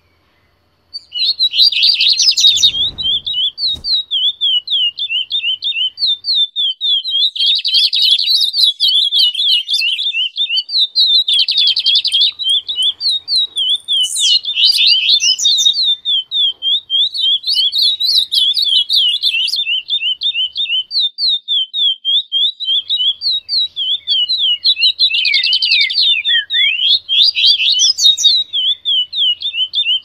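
Recorded songbirds singing together: one bird gives a steady string of quick, repeated chirps at about four a second, starting about a second in, while other birds break in every few seconds with short, dense bursts of higher song.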